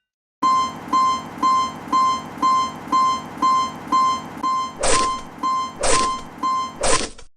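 Electronic Japanese level-crossing warning bell, dinging about twice a second. Near the end three short bursts of noise come in about a second apart, and the sound cuts off suddenly.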